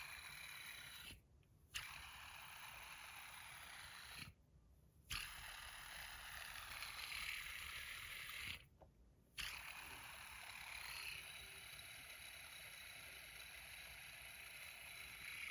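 Stainless steel Edamame fidget spinner spinning between the fingers, its bearing giving a steady faint whir. The spin is stopped and flicked off again with a sharp click three times, each spin lasting about three to four seconds.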